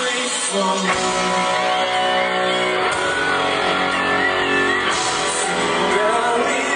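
Live band music with a male singer's vocal on top, played loud and steady through a concert sound system.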